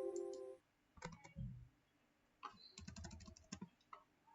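Faint computer keyboard typing: a few single key taps, then a quick run of key presses from about two and a half to three and a half seconds in. A sustained pitched note fades out in the first half-second.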